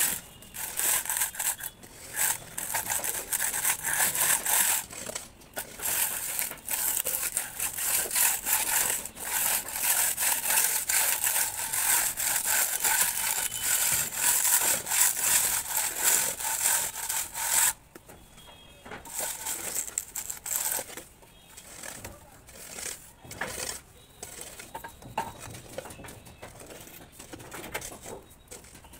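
A straightedge drawn back and forth across fresh cement-sand plaster on a wall, a steady rasping scrape in quick repeated strokes as the render is levelled. The scraping stops abruptly about two-thirds of the way through, leaving only quieter scattered scrapes and knocks.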